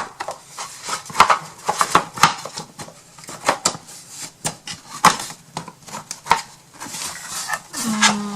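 Irregular knocks, clicks and light clatter of a small wooden box and its parts being handled and set down, with a short steady hum near the end.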